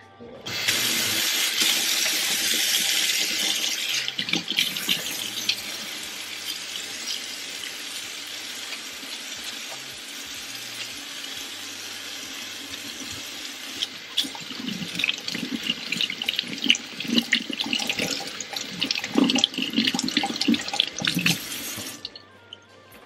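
Kitchen faucet running into a stainless steel sink, water splashing on the steel. In the second half the splashing turns uneven and clattery as hands work under the stream. The water cuts off suddenly near the end.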